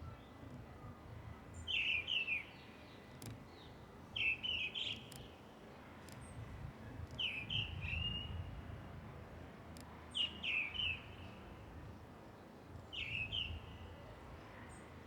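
A songbird repeating a short phrase of a few quick chirping notes five times, about every three seconds, over a steady low background rumble.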